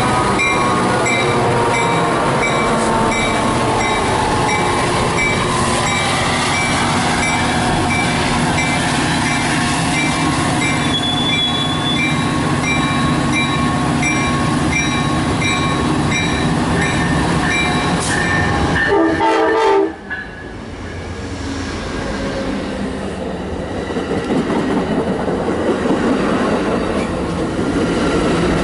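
A Metra commuter train's diesel locomotive and bilevel cars pass at speed, with a train horn and a bell ringing in a steady beat. About twenty seconds in it cuts abruptly to an Amtrak Southwest Chief's Superliner cars rolling past, a lower rumble that builds again.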